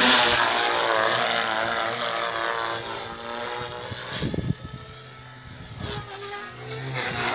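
SAB Goblin 380 electric RC helicopter in flight, its rotor and motor whine loud as it passes close, then falling in pitch and fading as it flies away. It grows louder again near the end as it comes back.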